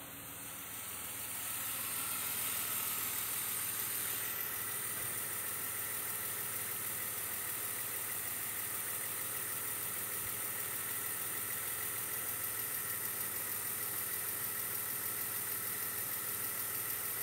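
BMW E39's 2.0-litre M52 straight-six (engine code 206S3) idling steadily, getting louder over the first two seconds as the open engine bay is approached.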